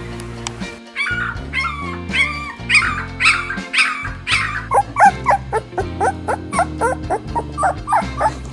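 Very young puppies squeaking and whimpering over background music. The calls are a repeated run of short, high, pitch-bending squeals about twice a second. About halfway through they turn lower and quicker, about three a second.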